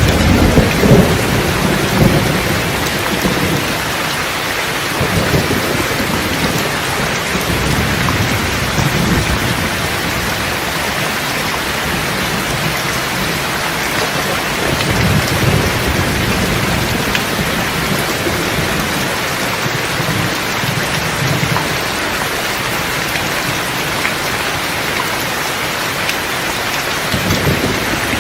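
Steady heavy rain hissing on surfaces, with low rolling thunder: a loud rumble in the first couple of seconds, fainter rolls around the middle and near the end.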